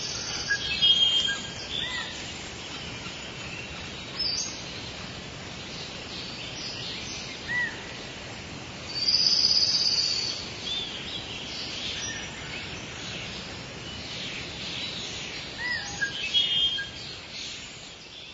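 Many high-pitched animal chirps, whistles and short trills over a steady background hiss. The loudest come about a second in, there is a longer high whistle around the middle, and another cluster near the end.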